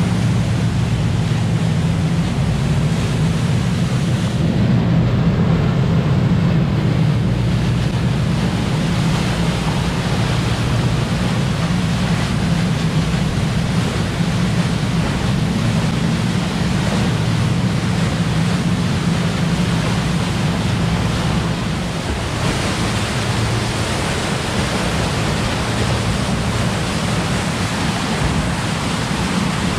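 Galeon 440 Fly motor yacht running fast: a steady low engine drone under the rushing hiss of the bow wave and spray, with wind on the microphone. About two-thirds of the way through, the drone drops back and the wind-and-water hiss takes over.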